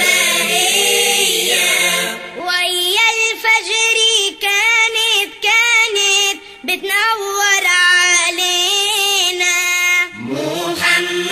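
Nasheed sung by voices: a group for the first two seconds, then a single high voice singing a wavering, ornamented melodic line, with the group coming back in near the end.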